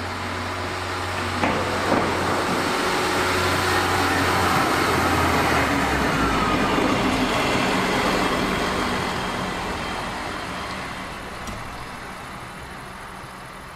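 DB Class 641 single-car diesel railcar passing close by, its diesel engine running along with the rumble of wheels on the rails. The engine hum drops in pitch about halfway through as it goes past, then the sound fades away.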